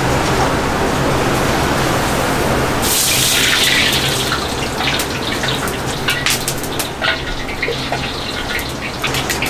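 Wok station with a steady hum and rush of noise; about three seconds in, water hits the hot wok and hisses as steam rises, then a metal ladle knocks and scrapes against the wok many times.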